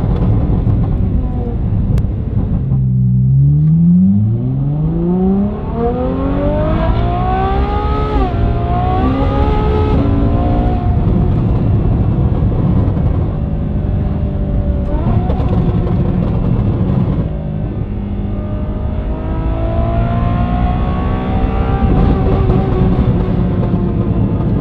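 Lamborghini V12 with a Gintani exhaust accelerating hard: a rough rumble about three seconds in gives way to a steep climb in pitch, followed by several short dips and climbs as it pulls on at high revs.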